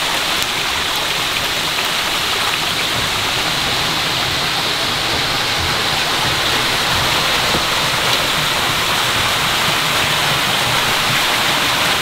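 Stream water running steadily over rocks, an even hiss with no pauses.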